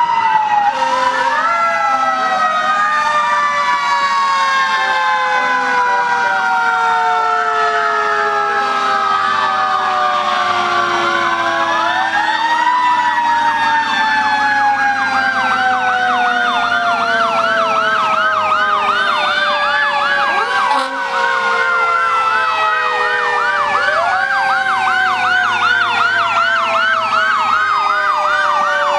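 Several fire engine sirens sounding together as the trucks pass in procession. Their wails overlap, each climbing quickly and falling away slowly, and a rapid yelp joins in about a third of the way through.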